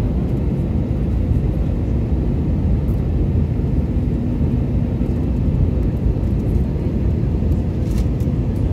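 Steady low noise of an airliner's jet engines and rushing air, heard inside the cabin from a window seat beside the wing-mounted engine during the descent to land.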